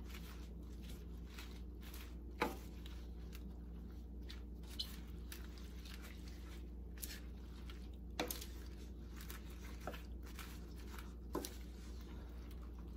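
A wooden spoon stirring fresh spinach leaves through curry in a stainless steel pan, with a few light knocks of the spoon against the pan, the sharpest about two and a half seconds in. A steady low hum runs underneath.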